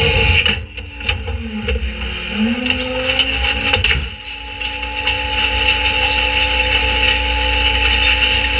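Autocar Leach rear-loader garbage truck running its hydraulic packer, with a steady machine drone and whine; about two seconds in the pump tone sags in pitch and comes back up. Near the middle, a sharp crash as a dark panel is dropped into the hopper and breaks into pieces.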